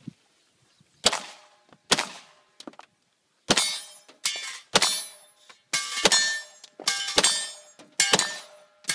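A string of about a dozen pistol shots at steel plate targets, each hit followed by a short metallic ring from the steel. Two shots come slowly, then after a pause about three seconds in the rest follow quickly, roughly two a second.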